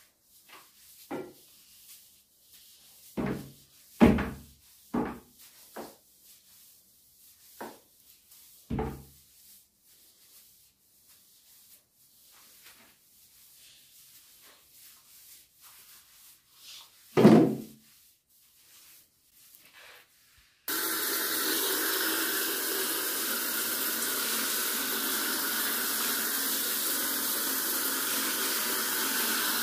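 A series of knocks and thuds from objects being handled, with a loud one about 4 s in and another about 17 s in. About two-thirds of the way through, a steady loud rush like running tap water starts and then cuts off suddenly.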